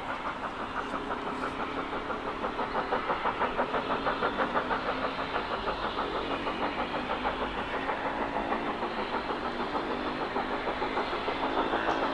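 Two LMS Stanier Black Five 4-6-0 steam locomotives working hard together, their exhaust beats coming in a fast, even stream of chuffs, at roughly five a second, and getting steadily louder as they draw nearer.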